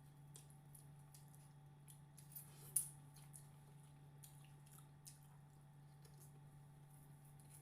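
Faint eating sounds: soft wet mouth clicks and smacks from chewing, with one sharp click a little under three seconds in, over a steady low hum.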